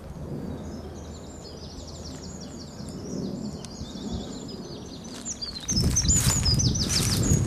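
A small songbird singing a long run of quick, high, repeated notes. About three-quarters of the way in, louder rustling and crunching footsteps through dry undergrowth come in over the song.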